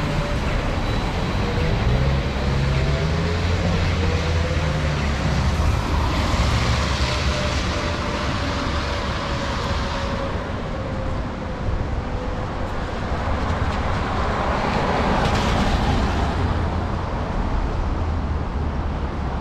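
Street traffic on wet pavement: an electric trolleybus pulls away with a thin motor whine that slowly falls in pitch, over a low rumble. Vehicles pass with a swell of tyre hiss about six seconds in and again about fifteen seconds in.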